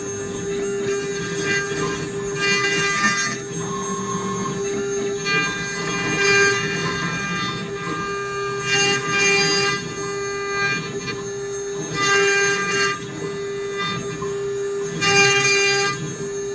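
Small CNC router's spindle running with a steady whine while its end mill carves a wooden blank turning on a rotary axis. Five times, about every three seconds, a short burst of harsher cutting noise as the tool bites into the wood.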